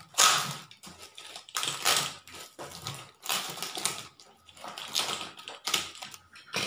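Plastic packaging crinkling and tearing as a parcel is unwrapped by hand, in several separate bursts of rustling.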